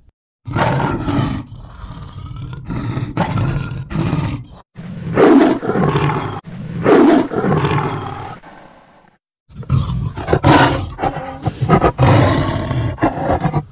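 Big cats roaring and growling: a run of separate roar clips spliced one after another, each cut off abruptly, with short silent gaps between them.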